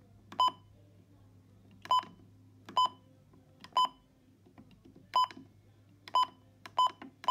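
Midland weather radio's keypad beeping as its buttons are pressed to set the alarm time: about seven short, sharp beeps at uneven intervals, one per key press.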